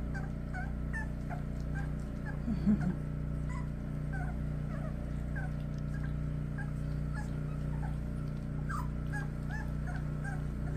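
Four-week-old cockapoo puppies whimpering and squeaking in short, high, scattered cries while they crowd and eat at a shared bowl, with one louder, lower cry about two and a half seconds in. A steady low hum runs underneath.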